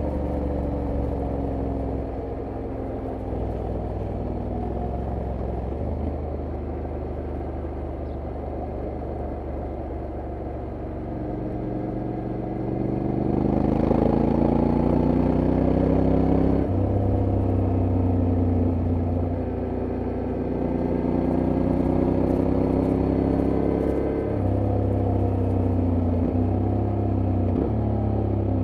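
Honda X-ADV 750's parallel-twin engine running under way, its pitch sliding down as the bike slows and rising again under throttle about halfway through. The dual-clutch gearbox changes gear several times, each shift stepping the pitch.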